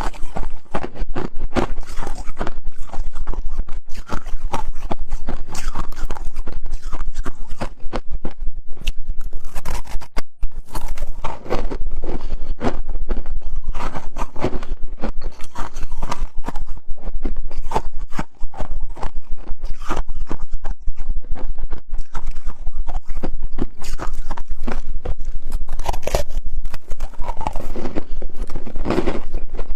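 Freezer frost and ice being bitten and chewed, a dense, continuous run of crisp crunches.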